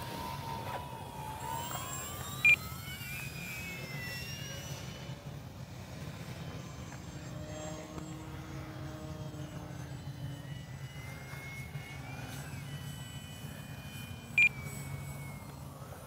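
Electric motor and propeller of a Flyzone Calypso RC sailplane whining in flight, its pitch rising and falling as it passes and changes throttle, over a low rumble of wind on the microphone. Two short, sharp beeps, about twelve seconds apart, are the loudest sounds.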